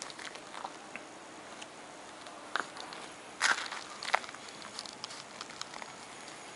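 Dry grass and leaves rustling and crackling in short, scattered bursts as something moves through them, louder for a moment a little past the middle.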